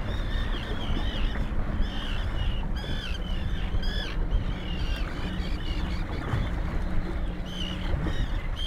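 A flock of seabirds calling, with many short high cries repeating and overlapping over the steady low rumble of a small motorboat and wind.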